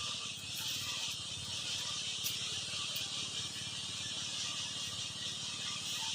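A small engine running steadily with an even, low pulsing beat, under a steady high hiss.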